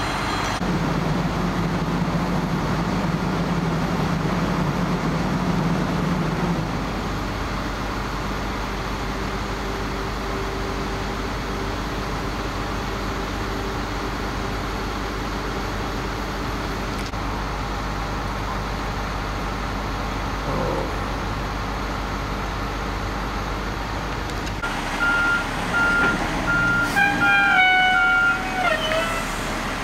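Fire engines idling with a steady low rumble. Near the end, a run of short beeps and then several stepping, horn-like tones sound over it.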